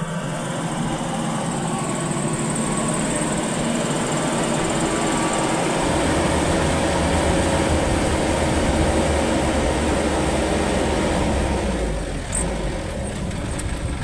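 Maxxi Bimo 102L rice combine harvester running close by: a loud, steady mechanical drone from its engine and machinery. About six seconds in the low rumble grows stronger, and it eases slightly near the end.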